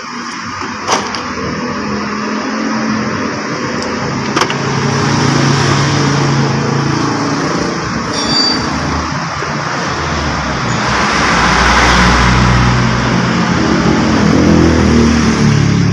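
Motor vehicle engine running nearby, its pitch rising and falling, with a swell of noise about eleven seconds in like a vehicle passing. Two sharp clicks about one and four seconds in.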